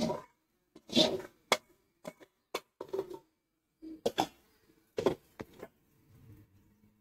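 Long metal ladle scraping and knocking against an aluminium kadai as sautéed vegetables are tipped into a pressure cooker: a run of sharp clinks and short scrapes, the loudest about a second in.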